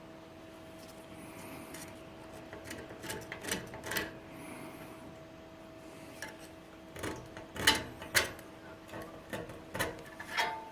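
Steel scriber scratching and tapping on a steel plate as a blanking plug is marked out, in short irregular strokes with a few sharp clicks, over a steady workshop hum.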